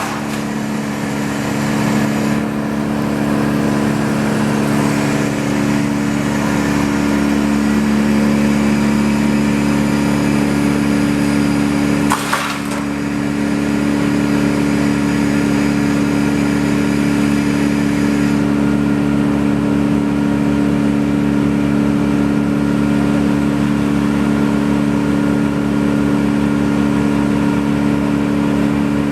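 Engine-powered machinery running steadily at a constant speed, with one sharp crack about twelve seconds in.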